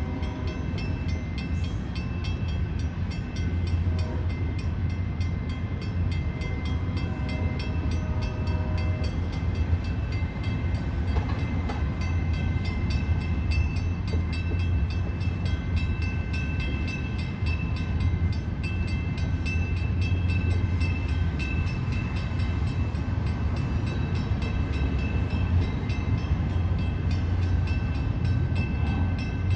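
A train rolling past: a steady, continuous low rumble, with several thin, steady high-pitched tones over it.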